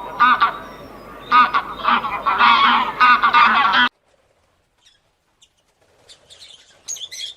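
A flock of geese honking, many repeated overlapping calls for about four seconds, then cutting off abruptly; faint high chirps follow near the end.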